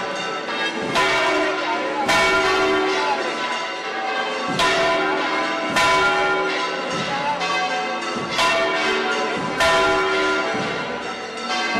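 Church bells ringing a peal, several bells struck one after another every second or two, each ringing on into the next.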